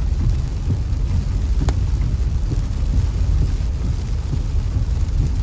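Tropical-storm wind buffeting the phone's microphone as a steady low rumble, with rain; a single sharp click about a second and a half in.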